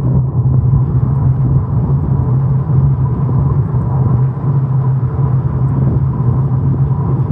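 Steady rumble of a small vehicle rolling along an asphalt road, with a thin steady tone above it.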